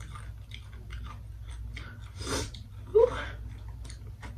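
A spicy tortilla chip being chewed with many short crunches. There is a breath about two seconds in and a brief loud voiced sound from the eater near three seconds.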